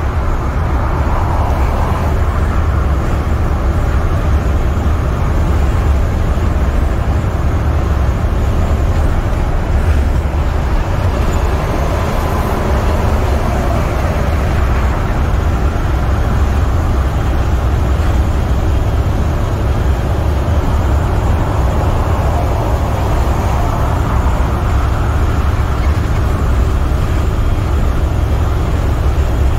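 International semi truck's MaxxForce 13 diesel engine and tyre/road noise heard from inside the cab while cruising at highway speed: a steady, even drone with a strong low rumble.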